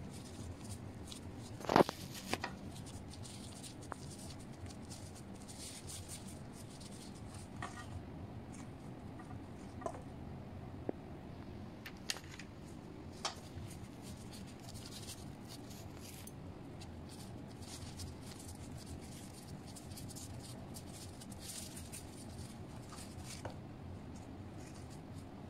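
A metal spoon clinking and scraping now and then against a stainless-steel bowl of melted white chocolate, a few scattered sharp clicks with the loudest about two seconds in, over a steady low hum.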